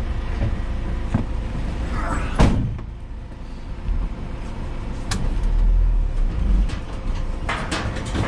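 A vehicle engine running steadily, with a rising swish that ends in one loud bang about two and a half seconds in, and a few sharp knocks near the end.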